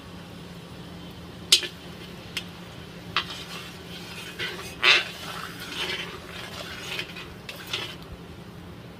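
Steel spoon clinking and scraping against a metal kadai while stirring bread pieces in the pan. A few sharp clinks come in the first few seconds, then a run of scraping with the loudest clink about five seconds in. A low steady hum runs underneath.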